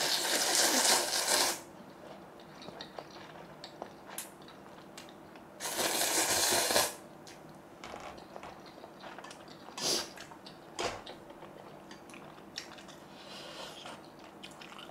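A person slurping ramen noodles twice, each slurp about a second long, the second about six seconds in, with scattered small clicks and taps between them.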